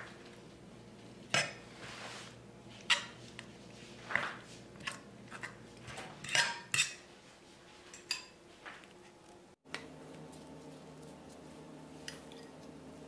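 Metal fork beating eggs in a non-stick frying pan, clinking and scraping against the pan's base in irregular strokes. About nine and a half seconds in, the strokes stop abruptly and only faint steady background noise remains.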